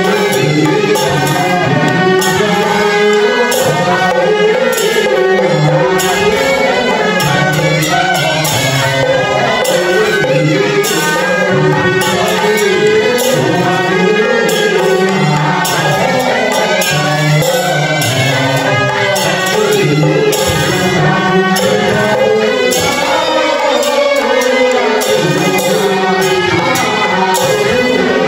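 Taoist ritual music for a temple offering rite: a wavering melody over frequent percussion strikes.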